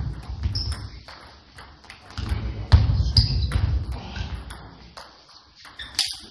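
Table tennis rally: a ping-pong ball clicking back and forth off the bats and the table, about one hit every half second, with dull low thuds underneath.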